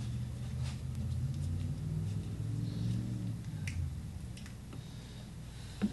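Light clicks and taps of painting supplies being handled, over a low steady hum that eases off a little under four seconds in, with one sharper click near the end.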